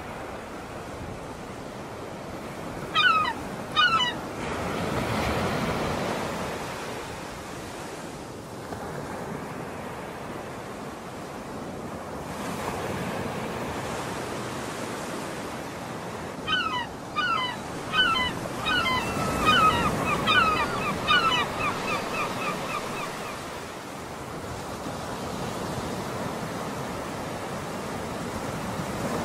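Small waves washing on the shore under a steady wind-and-water hiss, swelling twice. A bird gives two loud calls about three seconds in, then a longer string of calls from about sixteen seconds in that breaks into quicker, shorter notes before stopping.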